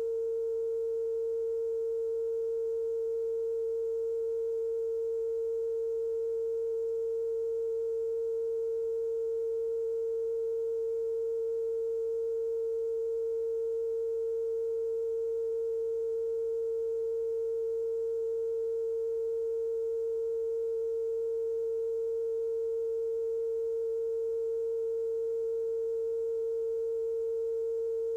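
Steady, unbroken test tone of middle pitch with faint overtones, held at one level: a TV station's off-air test signal after sign-off.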